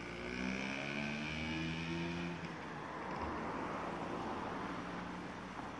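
A car driving by on the street. A steady engine hum gives way after about two seconds to tyre noise, which swells around three to four seconds in and then fades.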